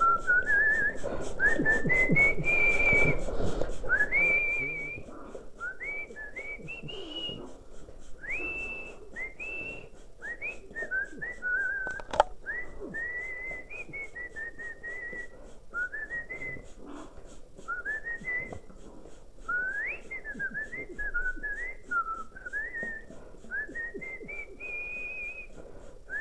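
Whistling: a long, wandering run of short sliding notes, rising and falling, with hardly a break. In the first four seconds a louder rushing, splashing noise from the shower spray runs under it, and there is one sharp click about twelve seconds in.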